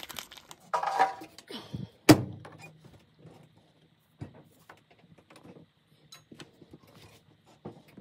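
Front-loading washing machine being set up: a single loud thunk about two seconds in, then a scatter of light clicks from the machine's controls as the cycle is chosen.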